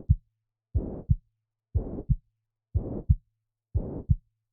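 Recorded heart sounds of mitral regurgitation at about one beat a second: each beat is a low first heart sound, then a steady holosystolic murmur that fills the gap up to a sharp second heart sound.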